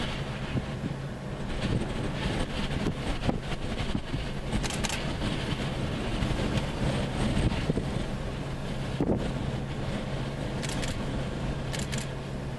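Steady low hum of an idling vehicle engine mixed with wind noise on the microphone, with a few scattered clicks.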